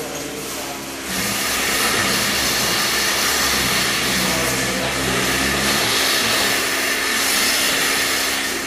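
Milking parlour's vacuum milking equipment running: a steady, loud hiss of air with a low steady hum underneath, stepping up about a second in.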